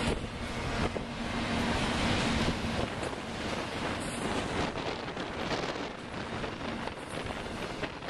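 Double-stack intermodal train passing close by, its wheels running over the rail joints, with strong wind buffeting the microphone.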